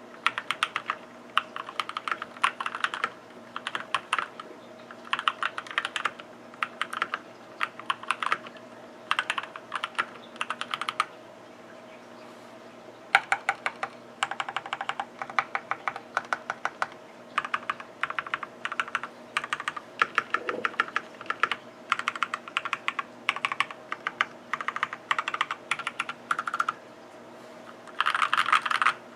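Typing on mechanical keyboards in short bursts of rapid keystrokes, with a pause of about two seconds near the middle. This is a sound test of a Keychron C2 modded for a deeper, less hollow sound, compared against a Keychron Q1.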